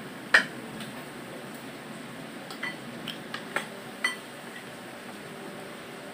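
Spoon and ceramic tableware clinking: one sharp clink about half a second in, then a run of lighter clinks around three to four seconds in, over a steady background hiss.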